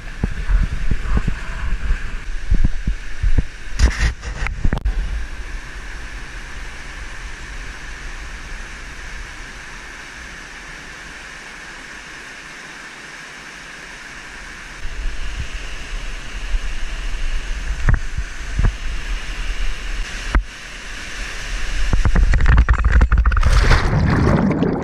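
Steady rush of a mountain-canyon waterfall and stream, with a few sharp knocks along the way. Near the end the noise swells loudly as the camera goes into churning white water.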